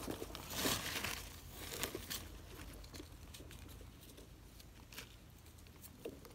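Dry leaf litter rustling and crinkling as a wild Amanita mushroom is picked from the forest floor, loudest about a second in, then light scraping and a few small clicks as a knife cleans soil off the mushroom's base.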